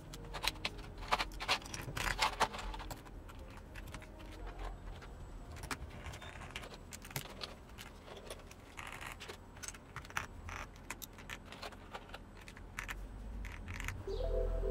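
Irregular small, sharp plastic-and-metal clicks and rattles of mechanical keyboard parts being handled and snapped into place, most frequent in the first few seconds.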